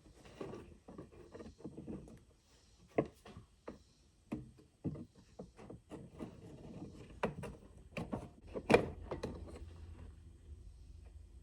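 Irregular clicks, taps and knocks of hand tools and small parts being handled during work on a generator carburetor, with one sharper knock about three-quarters of the way in.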